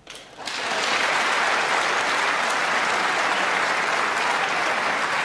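Snooker audience applauding a pot, the clapping rising within half a second and then holding steady. It greets the pot that puts the player beyond reach in the frame.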